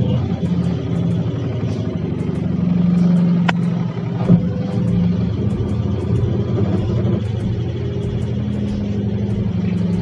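LG top-load washing machine running: a steady low motor hum that swells and eases slightly, with a sharp click about three and a half seconds in and a thump shortly after.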